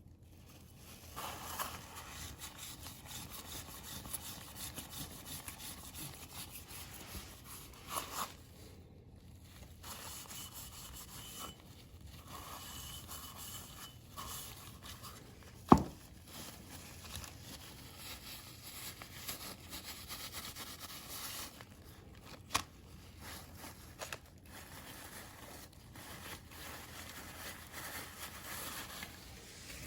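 Rubbing and scraping of small oil-filter parts being handled and cleaned by hand, with light ticks throughout. A sharp click stands out about 16 seconds in, and a smaller one about 22 seconds in.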